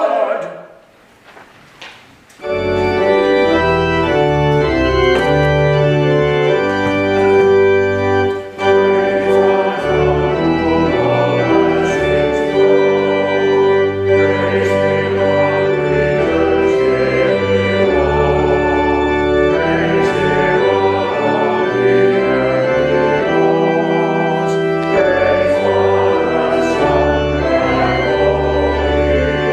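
A choir's held note dies away at the start. After about two seconds of quiet, a pipe organ begins playing sustained chords over a deep pedal bass, which continue to the end.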